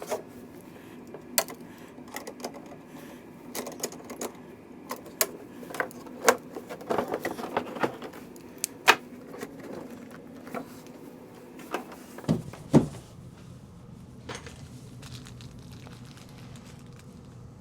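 Scattered small metallic clicks and taps from hand work on the tremolo potentiometer's mounting as its nut is tightened and the shaft is adjusted. About twelve seconds in come two louder knocks, and then a steady low hum comes in.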